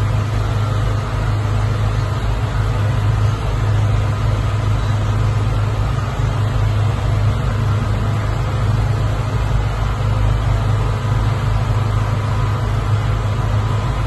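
Steady low background hum with an even hiss over it, unchanging throughout, from a running appliance or mains hum on the recording.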